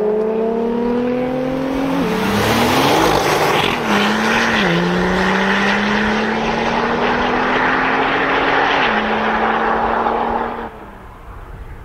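Porsche 997 Turbo's twin-turbocharged flat-six on its stock exhaust accelerating hard, the engine note climbing and dropping back with each of several upshifts. It fades away quickly near the end as the car pulls off into the distance.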